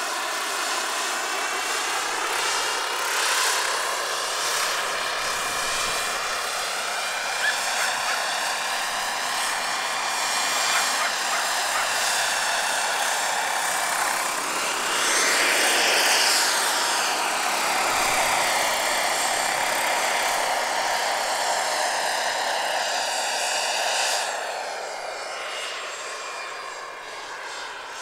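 Large-scale radio-controlled Bell 47G-3B-1 model helicopter, powered by a Wren 44 turbine, flying with a steady whine and rotor sound. The sound swells as the model passes closest about halfway through, with the pitch sweeping as it goes by, then fades near the end.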